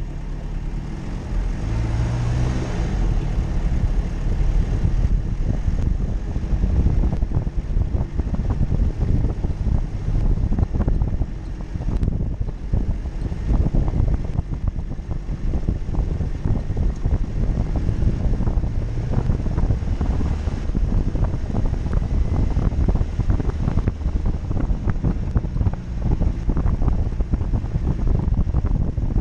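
Jeep Cherokee running off-road, with steady engine and driving noise, many short knocks and rattles throughout, and wind buffeting the microphone.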